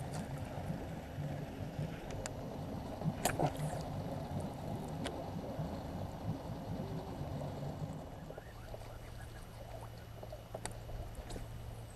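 Boat on the water: a low rumble with water noise, which changes about two thirds of the way in to a steadier low hum. A few sharp clicks are scattered through it.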